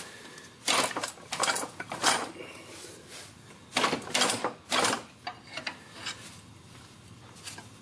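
Sharp metal clanks and knocks, about a dozen, as a repaired steel scooter kickstand is worked and pried at its pivot. The kickstand is stiff and out of true.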